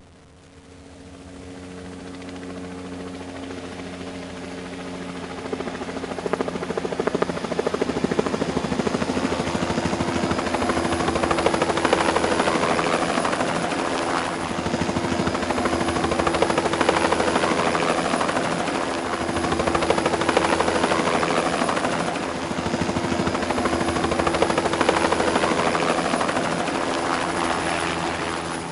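Helicopter rotor beating in a fast steady chop over engine noise, growing louder over the first several seconds, then holding loud with slow swells every few seconds.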